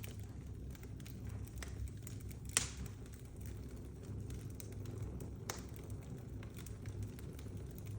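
Wood fire crackling, a steady low rumble of flames with scattered sharp pops; the loudest pop comes about two and a half seconds in, another about five and a half seconds in.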